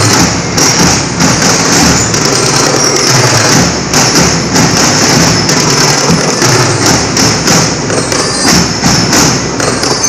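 Marching snare drums and a bass drum played by a school drum corps in a fast, steady beat, loud and continuous.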